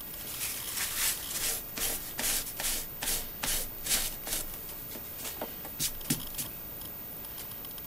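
Paper towel rubbed and crumpled by hand: a run of short, scratchy rubbing strokes, about two a second, thinning out after about four seconds and stopping a little before the end.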